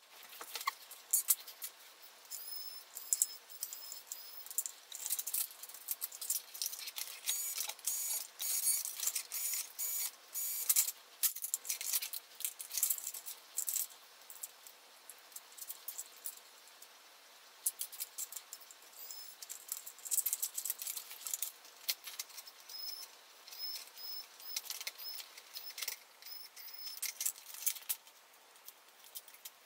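Sped-up handling sounds of a laptop teardown: a quick, dense run of clicks, taps and rattles from small plastic and metal parts and screws, with short high chirps here and there.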